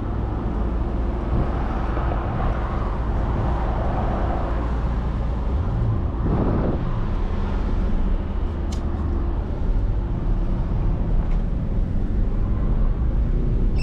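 Mercedes-AMG GT 63 S's twin-turbo V8 running steadily with road rumble as the car drives, heard from inside the cabin, with a brief swell about six and a half seconds in.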